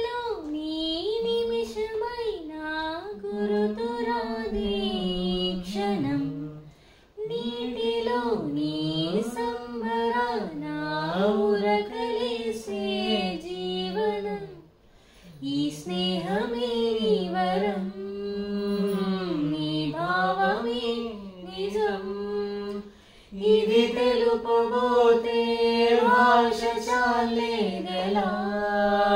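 A woman and children singing a song together, practising, in phrases with a few short breaks.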